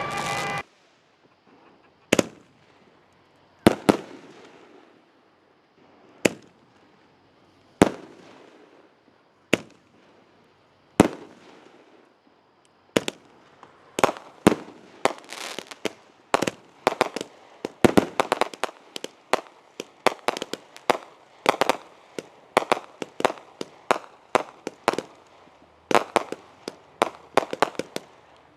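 Fireworks going off outdoors: sharp bangs, each followed by a short echoing tail. They come singly every second or two at first, then turn into a rapid string of bangs, several a second, from about halfway through.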